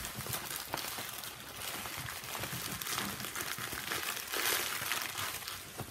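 Clear plastic crinkling as hands roll up a bag of small diamond-painting drill packets against a countertop, with a louder stretch about four and a half seconds in.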